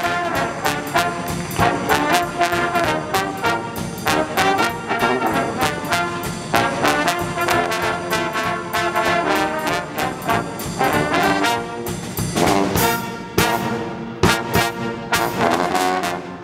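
A brass band of sousaphone, trumpets, trombones and alto saxophone plays a New Orleans second-line tune over a drum kit. In the last few seconds the music breaks into short, separated accented hits.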